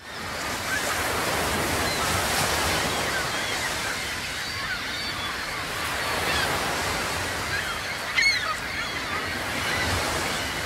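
Sea waves washing steadily, with birds calling over them in many short chirps and one louder call about eight seconds in.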